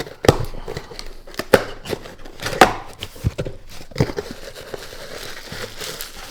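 Cardboard box and packaging being opened and handled on a table: a series of sharp taps and knocks as flaps and contents are moved, then softer rustling and scraping in the last couple of seconds.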